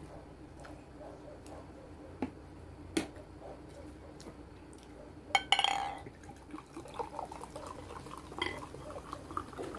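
Orange drink poured from a bottle into a glass, gurgling and splashing, after a short loud hiss about halfway through. Two light clicks come before it.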